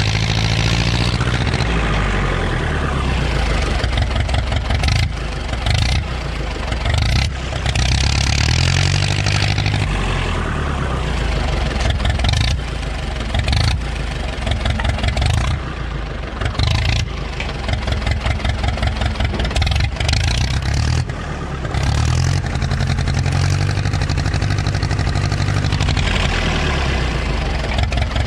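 Ostrówek K-162 backhoe loader's diesel engine running as the machine is driven, its revs rising and falling, with a few brief dips in level.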